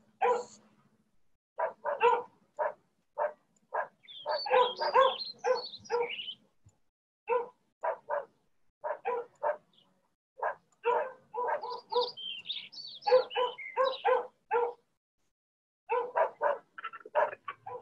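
A dog barking repeatedly in quick runs of short barks, with higher yelps mixed in about four seconds in and again about twelve seconds in.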